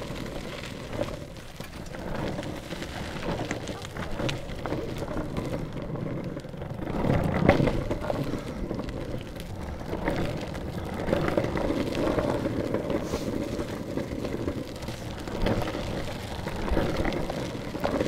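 Longboard wheels rolling over a gritty towpath surface, a steady rough rumble and crackle that swells louder for a moment about seven seconds in.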